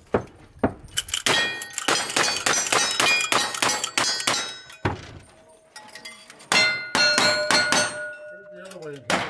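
Rapid shots from a lever-action rifle at steel targets, many answered by the ringing clang of the steel plates being hit. They come in two fast strings with a pause between them.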